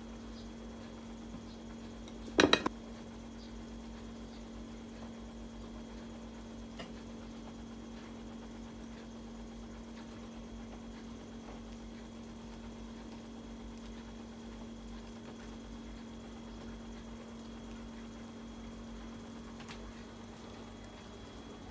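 Steady low hum, with one brief clatter of crockery about two and a half seconds in and a couple of faint taps later.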